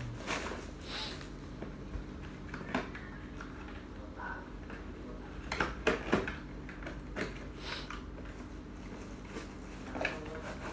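Packaging being handled by hand: plastic wrap rustling and a cardboard box being opened, with scattered crinkles and taps and a cluster of sharper, louder crackles about six seconds in.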